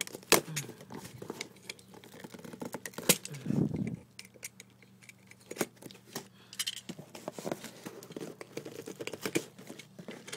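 Hands opening a cardboard shipping box: irregular scratches, clicks and knocks on the cardboard as the packing tape is picked at and torn, with a longer scraping rustle about three and a half seconds in.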